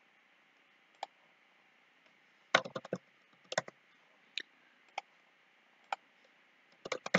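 Computer mouse clicks and keyboard key presses: single sharp clicks about a second apart, with a quick run of several about two and a half seconds in and another near the end, over a faint steady hiss.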